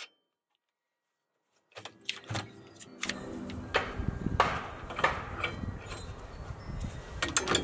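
After a stretch of dead silence, metal hand tools clink and rattle in irregular light knocks as a socket and wrench work on the caliper bracket bolts of a Ford F-350's brake.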